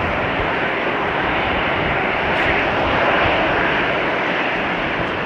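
Jet engines of an Airbus A350-900 taxiing, the Rolls-Royce Trent XWBs at low taxi power: a steady rush of engine noise that swells slightly about halfway through.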